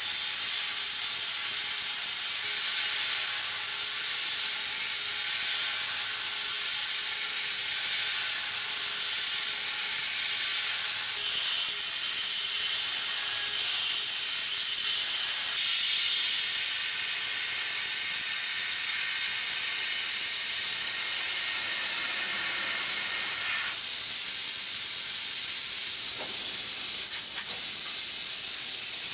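Tongtai SH-5000P horizontal machining center milling an aluminium block: a steady hiss with a faint high whine from the spindle and cut, the tone shifting a few times as the cut changes.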